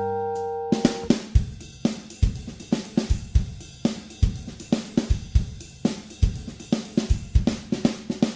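Background music: a held chord fades out in the first second, then a drum kit plays a beat on its own, with kick drum, snare and hi-hat.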